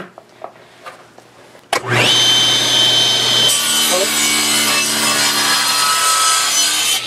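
Table saw switched on about two seconds in, its motor whine rising quickly to a steady high pitch; from about three and a half seconds in, the blade saws through a glued segmented wooden ring held in a sled jig, splitting it in two.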